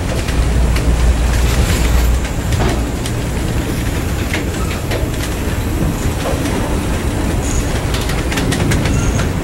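Train rolling past close by: a steady rumble with the wheels clicking over rail joints, the low rumble heaviest in the first two seconds, and a couple of faint, brief wheel squeals near the end.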